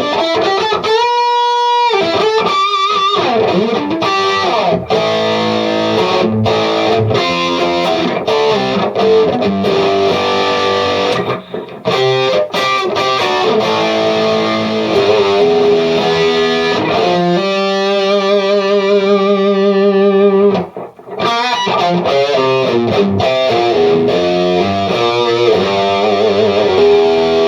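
Electric guitar played loosely through a KONG 6810HW amp head into a Marshall 4x12 cabinet with Celestion Vintage 30 speakers, in an overdriven tone: runs of picked notes and chords, with a chord held for about three seconds two-thirds of the way in and two brief breaks.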